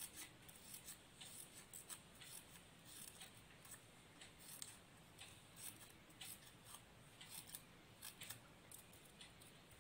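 Small scissors snipping thin white paper in a string of short, faint snips, cutting a fringe along the edge of a paper leaf shape to make a feather.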